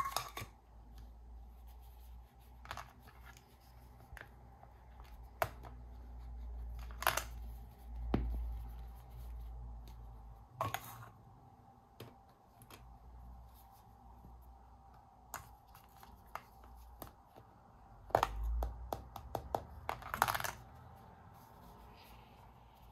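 Hard plastic toy fruit pieces being handled and set down on a surface: scattered clicks and taps of plastic, a few short scrapes, and low handling rumble now and then.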